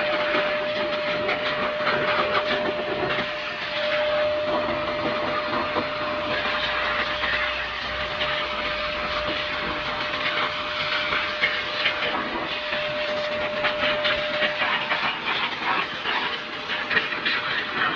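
Handheld electric air blower running, a steady rush of blown air with a thin whine over it that drops out near the end, as it blows dust out of a refrigerator's condenser.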